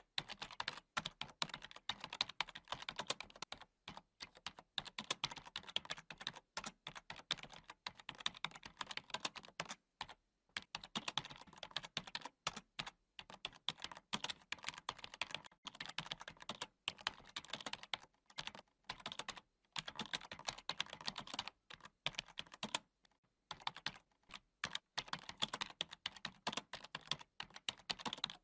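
Keyboard typing: rapid runs of key clicks with short pauses between them, a typing sound laid under text being typed out on screen.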